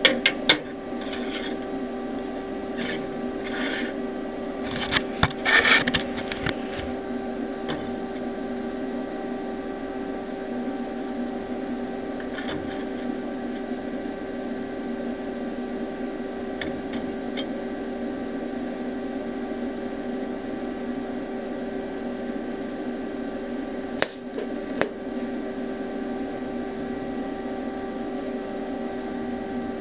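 A steady machine hum with a few short bursts and sharp clicks as thin mild-steel sheet is positioned and tack-welded with a TIG torch to form a butt joint.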